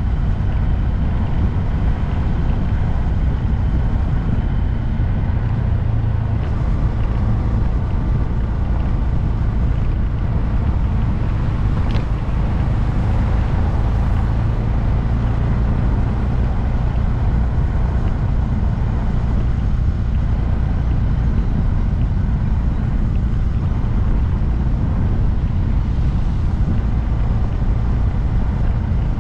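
2022 Honda Grom's single-cylinder engine running at a steady pace while riding, with wind rushing over the microphone.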